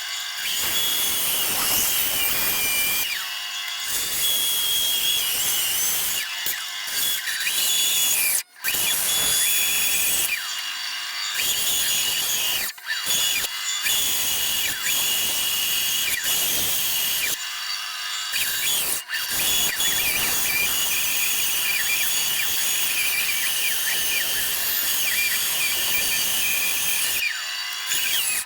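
Small, inexpensive benchtop bandsaw running and cutting through a wooden block, a steady motor whine under the sawing noise. The cutting sound drops away several times for a second or so as the blade clears the wood, and it breaks off abruptly once a little past a quarter of the way through.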